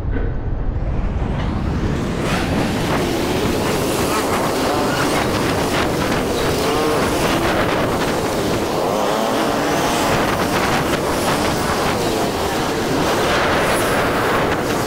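Engine and road noise of a moving vehicle riding through city traffic, with an engine pitch that rises and falls. The sound starts muffled and opens up to full brightness within about the first second.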